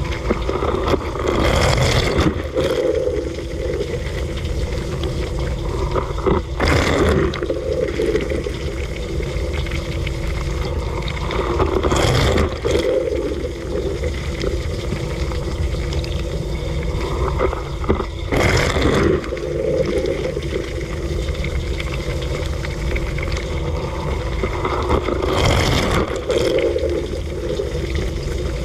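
Dishwasher running a wash cycle, heard from inside the tub: a steady hum under water spraying and splashing, with a louder rush of spray coming round about every six seconds.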